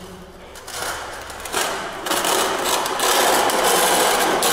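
Metal screed rule scraping across wet tile adhesive on a floor: a rough scraping noise that starts faint, grows over the first couple of seconds and turns steady and louder about three seconds in.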